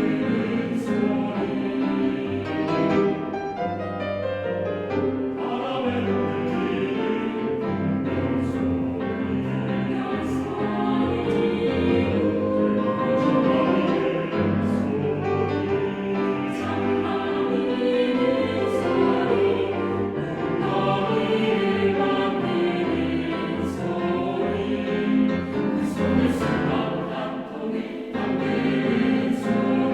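Choir singing a choral piece in bossa nova style: several voice parts hold chords that change steadily over a low, repeating bass line.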